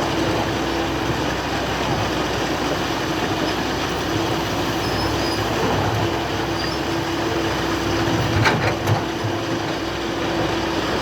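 Excavator running steadily, a constant mechanical noise with one steady whine; two short knocks come about eight and a half seconds in.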